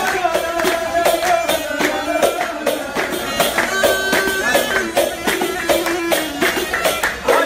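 Live Arabic folk music: a flute plays a held, wavering melody over rhythmic hand clapping and percussion.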